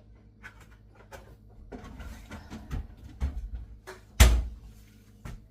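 Kitchen cupboard being rummaged through: a run of clicks, knocks and clatter, with one loud bang about four seconds in, like a cupboard door or dishware knocking.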